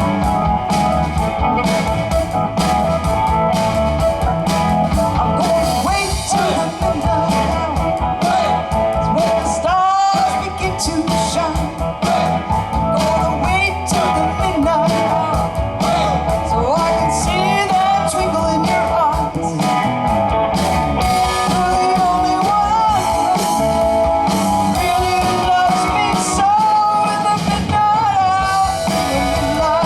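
Live rock band playing a blues-rock number, electric guitar over bass and drums, with singing.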